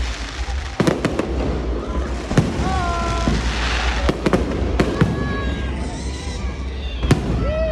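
Aerial fireworks display: a constant crackle and hiss of bursting shells, punctuated by about seven sharp bangs.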